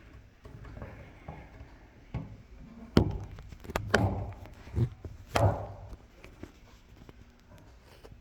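Handling noise: about half a dozen knocks and bumps as hardware is shifted on a work surface, the loudest about three seconds in and just past five seconds.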